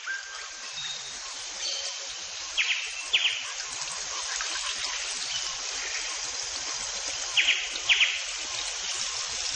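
Outdoor nature ambience: a steady high hiss of insects, with two pairs of short, high chirps about five seconds apart.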